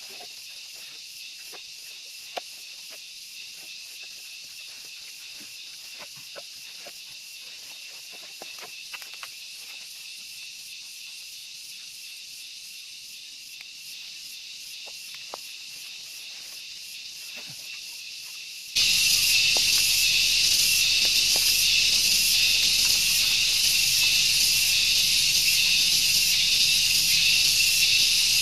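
Steady high-pitched chorus of insects with scattered faint clicks and snaps, likely from handling and tying firewood. About two-thirds of the way through, the chorus abruptly becomes much louder.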